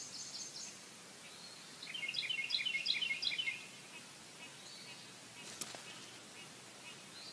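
A small animal chirping: a quick run of short, high chirps, about five a second, starting about two seconds in and lasting under two seconds, with a few fainter, higher chirps at the very start. A single sharp click comes later, over a faint steady hiss.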